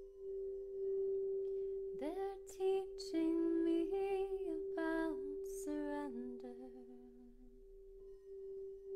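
A frosted quartz crystal singing bowl rings with one steady tone throughout. About two seconds in, a woman's voice joins it, singing wordless gliding tones with breaths between phrases, fading out a little over a second before the end, when the bowl swells again.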